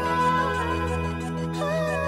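Background music: the soft instrumental opening of a Bengali love song, a wavering melody over held chords.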